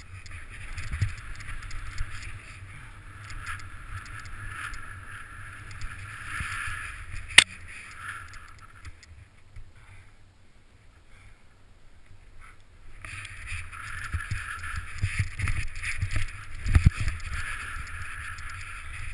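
Snow hissing and swishing under a rider sliding and turning down a powdery slope, with low wind rumble and thumps on the microphone. One sharp crack about seven seconds in, a quieter stretch in the middle, and heavier bumps near the end.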